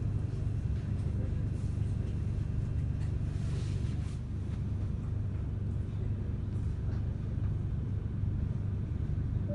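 Steady low rumble of a Siemens Nexas electric train on the move, heard from inside the carriage.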